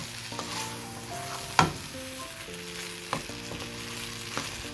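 Cooked noodles being stirred and tossed with a spatula through masala in a hot nonstick pan, with a soft sizzle and a few knocks of the spatula against the pan. The loudest knock comes about a third of the way in. Soft background music plays underneath.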